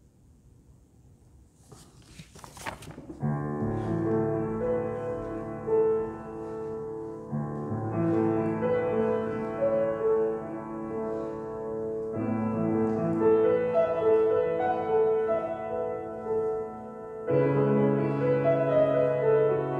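Slow instrumental music on a keyboard instrument begins about three seconds in, after a brief rustle. It plays held chords that change every few seconds, with a melody line on top.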